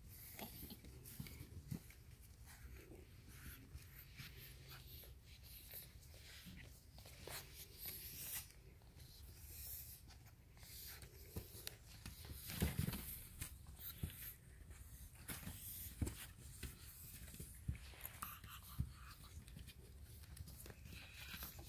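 Faint scuffling, scratching and scattered clicks as shar-pei puppies move about on a wooden deck and carpet and are handled, with one louder knock about halfway through.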